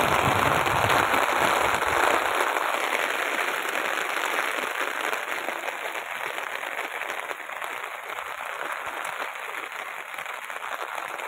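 Heavy monsoon rain pouring onto a concrete rooftop terrace and pattering on the umbrella overhead, a dense steady hiss. It is fuller and louder for the first couple of seconds, then eases slightly.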